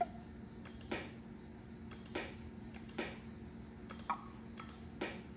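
Computer mouse button clicking about once a second, five times, with a few fainter ticks between, over the steady low hum of a running Macintosh SE/30.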